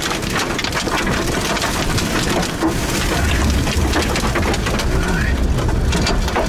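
Hail and heavy rain pelting a car's roof and windshield, heard from inside the cabin: a dense, steady patter of small hits.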